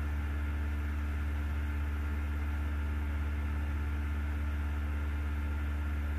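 Steady low hum with a faint hiss, unchanging throughout: background noise of the recording.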